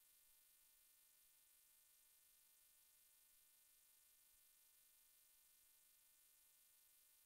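Near silence: only a faint, steady electronic hiss and hum, with no engine or road sound to be heard.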